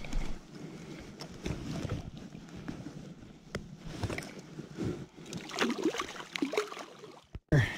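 River water sloshing and splashing around a trout held in a landing net while hands work the net, with scattered small knocks of handling and wind on the microphone.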